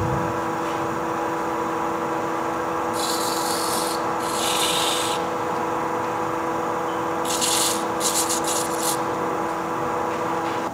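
Wood lathe running with a steady hum, as the spinning wood is worked in short rubbing, hissing passes, twice in two groups. The hum stops at the very end.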